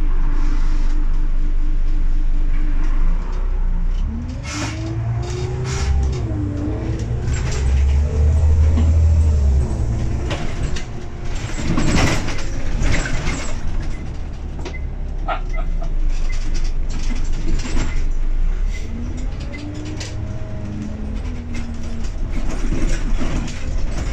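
Scania N94UB Omnicity bus heard from inside near the front. Its nine-litre five-cylinder diesel idles steadily at first, then pulls away about four seconds in, its pitch rising and falling as it works up through the gears, heaviest about eight seconds in. Scattered clicks and rattles come from the bus body and fittings.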